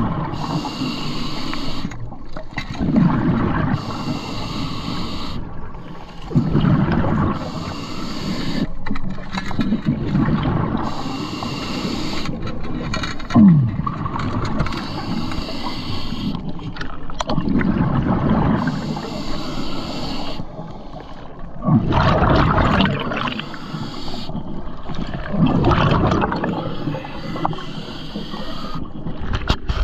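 Diver breathing through a scuba regulator close to the microphone: a hiss on each inhale, then a gush of bubbles on each exhale, a breath every three to four seconds.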